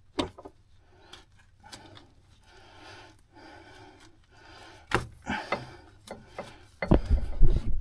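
Hand work on machinery: scattered clicks and knocks with some rubbing, turning into a louder, denser run of knocks and low rumbling about seven seconds in.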